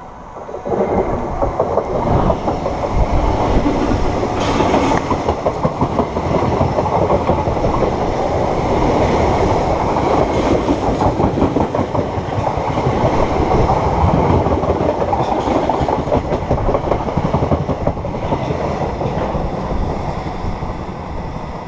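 A train passing at speed on the track right beside the listener: a loud rush of wheels on rails and air. It starts suddenly about a second in, holds for most of the passage and eases off slightly near the end.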